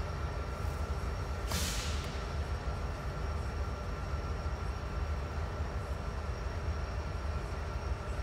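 Norfolk Southern diesel locomotive standing and idling with a steady low rumble, with a short hiss of air about a second and a half in.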